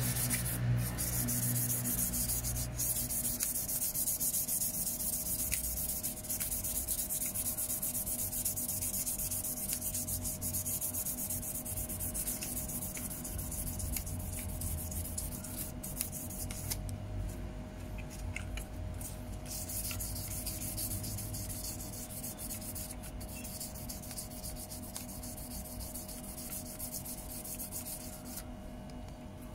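Sandpaper rubbing steadily over the plastic of a car's digital climate control panel, hand-sanding the surface smooth, gradually getting quieter.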